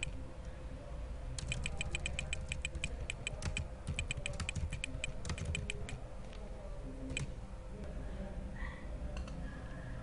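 Typing on a computer keyboard: a fast run of keystrokes for several seconds, then a few single clicks further on, over a faint steady hum.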